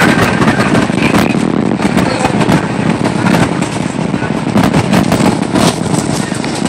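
Cabin noise inside a moving coach bus: steady road and engine rumble, broken by a dense, irregular crackling rattle.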